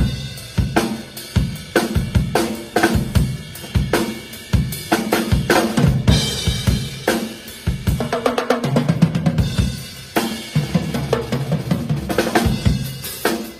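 Rock drum kit with Zildjian cymbals played solo: a steady groove of kick, snare and hi-hat with crash cymbal hits, broken by tom fills past the middle and again near the end.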